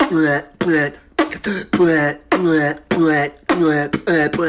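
Male voice beatboxing: a quick, even run of short pitched vocal syllables, each opening with a hissing 'ts', about three a second.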